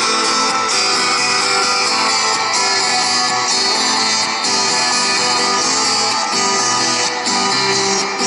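Background music led by strummed guitar, playing at an even level.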